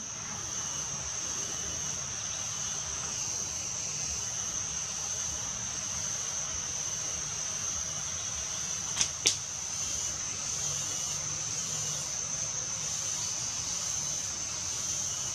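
Steady high-pitched insect drone from the forest, unbroken throughout. About nine seconds in, two sharp clicks come a fraction of a second apart.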